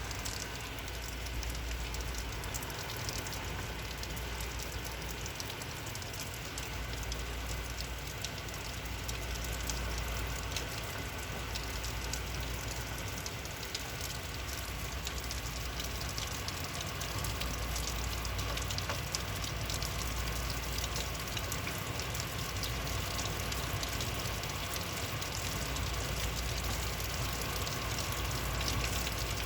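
Heavy rain coming down hard: a steady, dense hiss of falling drops with a low rumble underneath.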